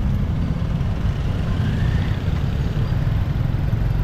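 Street traffic heard from a moving motorbike: a steady low rumble of engines and road noise from the surrounding scooters, tuk-tuks and cars.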